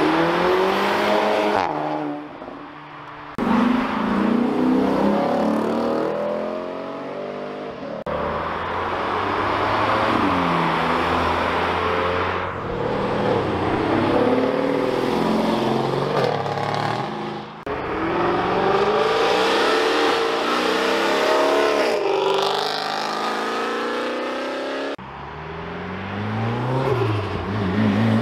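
A series of performance cars, including a Volkswagen Golf, a Mercedes E-Class saloon and a Mitsubishi Lancer Evolution, each accelerating hard past in turn. Their engine notes rise, drop back at each gear change and rise again. The cars come in short separate cuts every few seconds.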